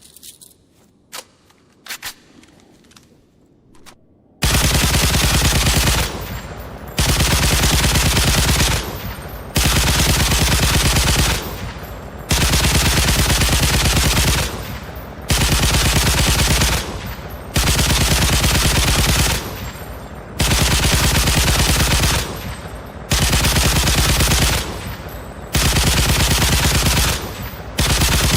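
Automatic gunfire sound effect: a few faint sharp clicks, then from about four seconds in about nine long bursts of rapid machine-gun fire, each lasting a second and a half to two seconds, with short pauses between them.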